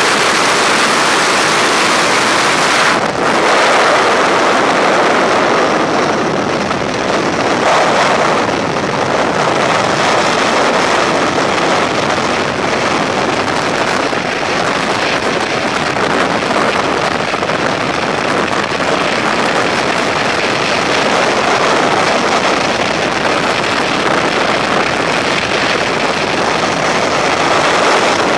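Steady loud rush of freefall wind over the camera microphone during a tandem skydive, starting from the open door of the jump plane.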